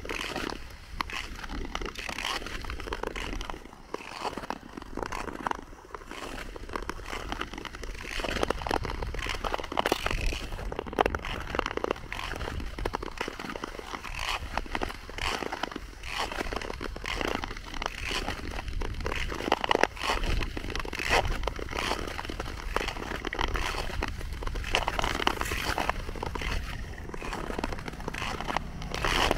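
Ice skate blades scraping and crunching across lake ice in an uneven, continuous run of strokes.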